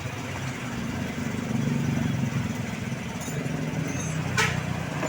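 Road traffic: vehicle engines running as they pass, rising and falling, with a sharp click about four and a half seconds in.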